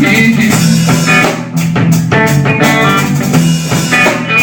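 Live rock band playing an instrumental passage between vocal lines: electric guitar over bass and a drum kit, loud and steady.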